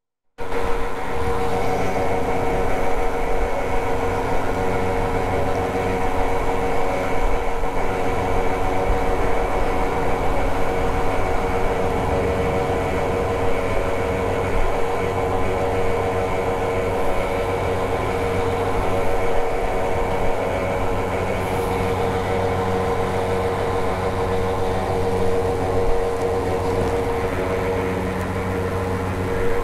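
Hero XPulse 200 4V's single-cylinder engine running at a steady cruise under way. It makes an even drone with a steady hum over wind and road noise, cutting in abruptly just after the start.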